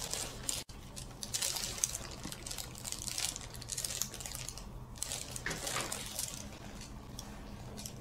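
Soft rustling and handling noise as hands cradle and gently turn a person's head on a treatment table, over a faint steady low hum.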